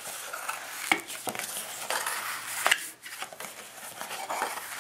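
Paper being folded along perforated lines and creased flat by hand against a tabletop: continuous rustling and rubbing, with a few sharp crackles as the folds give.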